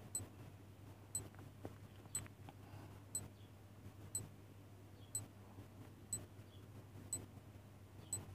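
Countdown timer sound effect ticking once a second: short, sharp, high-pitched clock ticks.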